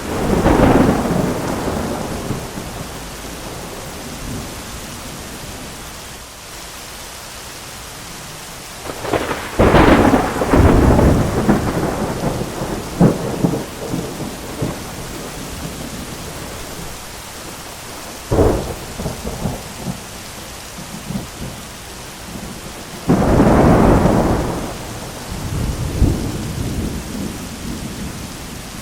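Thunderstorm: steady heavy rain with repeated claps of thunder. There are four loud crashes, at the start, about ten seconds in, a sharper crack about eighteen seconds in, and another about twenty-three seconds in, each rolling off into a low rumble.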